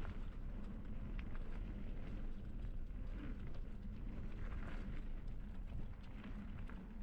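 Mountain bike rolling fast downhill on a dirt trail: a steady low rumble of tyres and wind on the camera mic, with scattered clicks and rattles from the bike and trail.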